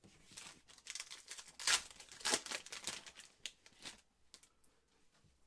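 A foil trading-card pack wrapper being torn open and crinkled, a run of crackling rustles over the first four seconds that dies away near the end.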